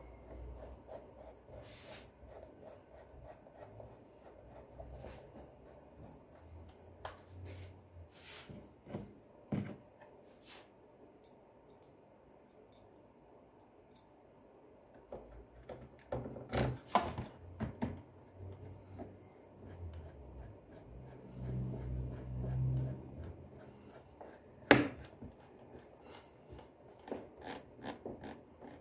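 Hand work on a dismantled vacuum cleaner: scattered small clicks, light knocks and rubbing of tools and plastic parts being handled, with one sharper click near the end.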